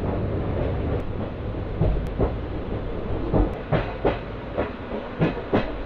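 Railway carriage noise inside a sleeper coach: a steady low rumble, with a run of sharp clacks and knocks starting about two seconds in.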